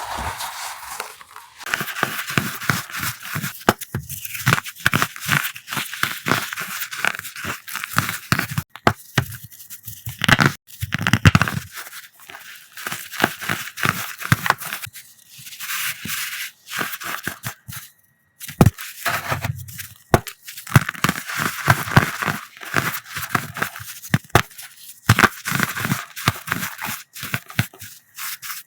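Coloured powder blocks being crushed by hand: dense crunching and crackling, with a slight squeak, in several runs broken by short pauses.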